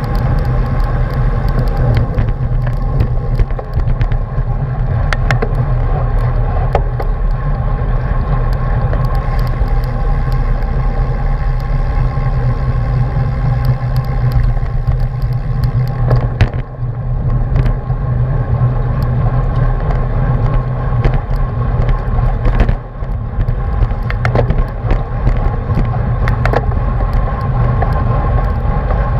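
Steady wind and road rumble on the microphone of an action camera mounted on a racing bicycle riding at speed in a pack, with scattered sharp clicks.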